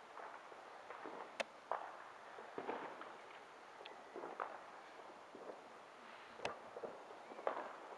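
Faint, distant bangs going off at irregular intervals: a sharp crack about a second and a half in and another past six seconds, with softer pops in between.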